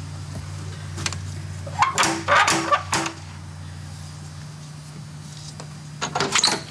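Knuckles knocking several times on a wooden front door, the loudest sounds, between about two and three seconds in; near the end a quick cluster of clicks as the door's latch and lock are worked to open it. A steady low hum runs underneath.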